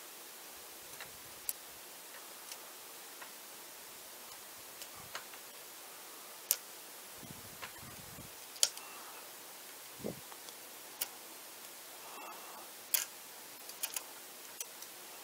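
Irregular small, sharp clicks and ticks from a jeweller's screwdriver and fingers handling the plastic and metal parts of a Nikon zoom lens's rear mount, with a soft thud about ten seconds in, over a steady background hiss.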